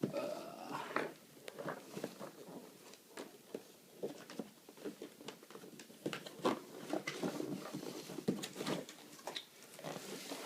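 Cardboard case and packaged paintball marker parts being handled and unpacked: scattered light taps, clicks and rustles at irregular intervals.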